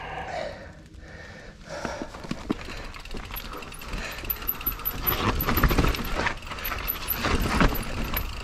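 Mountain bike ridden over a rooty trail: the freehub ratchet ticks and the bike clatters over roots, with a low rumble of tyres and wind building from about halfway.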